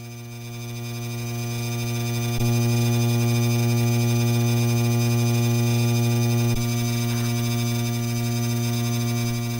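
Aloha Breeze ceiling fan motor buzzing with a loud, steady mains hum, a sign of the motor now buzzing where it did not before. The hum swells, then steps up with a click about two and a half seconds in and drops back a little with another click around six and a half seconds.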